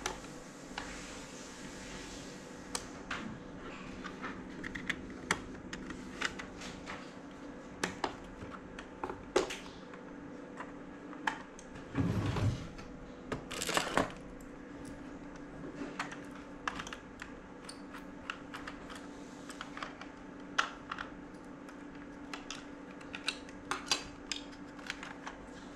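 Scattered small plastic clicks and knocks from handling a toy RC car and its pistol-grip transmitter on a desk, over a steady faint hum. About twelve seconds in there is a short, louder rattling burst, then a second one a second later.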